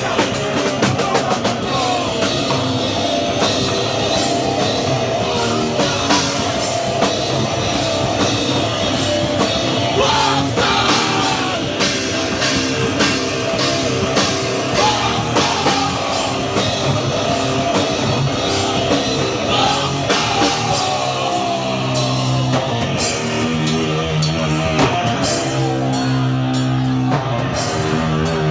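Hardcore band playing live and loud: fast drum kit hits under distorted electric guitars. Near the end the guitars settle into held, heavy low chords.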